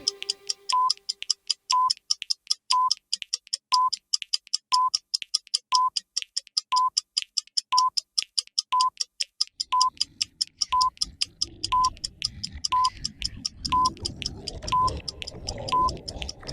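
Countdown timer sound effect: a short electronic beep once a second over rapid clock-like ticking. A low rumbling noise comes in about two-thirds of the way through and grows toward the end.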